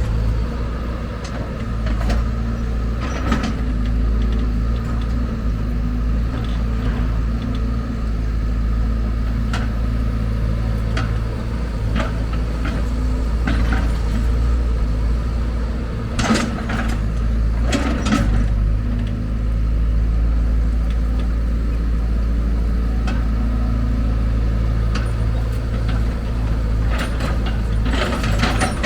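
Diesel engine of heavy earthmoving machinery running steadily, with a few short knocks and clatters, around 3, 16 and 18 seconds in, typical of an excavator loading material into a dump truck.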